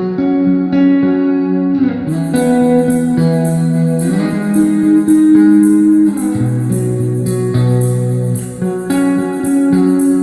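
Background music led by guitar, with held, plucked notes over a steady beat. A brighter, higher layer comes in about two seconds in.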